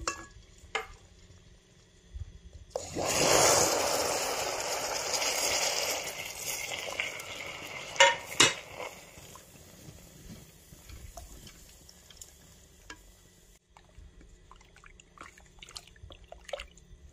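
Hot caramelized sugar meeting milk in a pot: a loud sizzling hiss starts about three seconds in and fades over several seconds. Then come two sharp knocks of a spatula against the pot, and quieter scraping and clicking as the milk is stirred.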